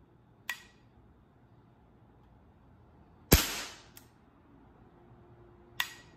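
An air pistol fired once about three seconds in, a sharp crack that rings briefly. Fainter sharp clicks come near the start, shortly after the shot, and near the end.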